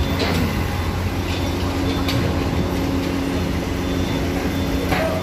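Steady low engine rumble and hum aboard a car ferry, with a few light knocks.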